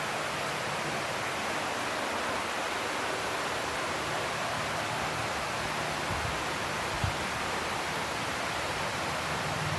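Heavy rain falling steadily, an even hiss with no let-up. About seven seconds in there is a single brief thump.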